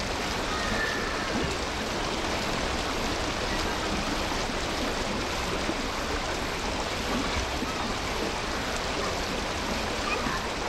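Steady, even rushing noise like running water, unchanging in level throughout.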